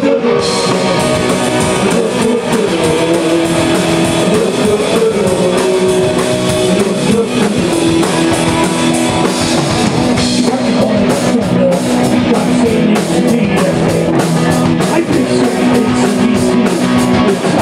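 Live rock band starting a song right after a four-count: electric guitar and drum kit playing a steady beat.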